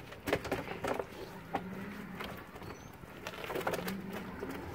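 Plastic fish crate and weigh bag being handled at a weigh-in scale: a few sharp knocks and clatter in the first second and a half, then lighter clicks. A low held tone sounds twice in the background, about two and four seconds in.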